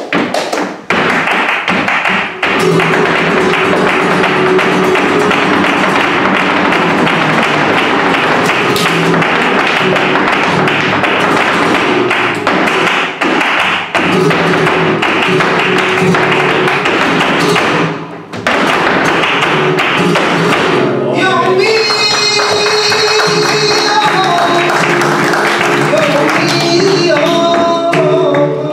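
Live flamenco: a dancer's rapid heel-and-toe footwork (zapateado) over flamenco guitar, breaking off suddenly about two-thirds of the way through. Then a male flamenco singer takes up the song over the guitar.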